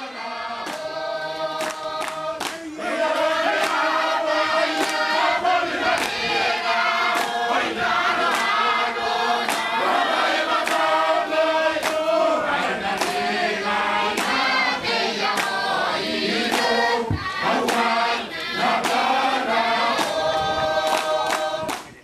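A choir singing together in harmony, with sharp beats keeping a steady rhythm. It grows louder about three seconds in and fades away at the very end.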